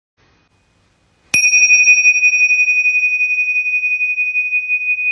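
A small bell struck once about a second in, ringing as a single high tone that pulses slightly and holds for nearly four seconds before cutting off abruptly.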